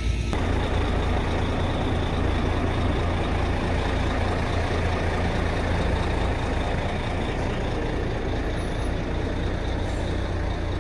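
A heavy vehicle's diesel engine running steadily, with a deep, even hum.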